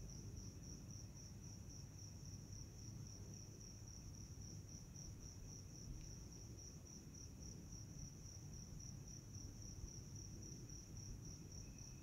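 Crickets chirring in a steady, high-pitched trill, with a fainter, lower insect trill that grows stronger near the end, over a low background rumble.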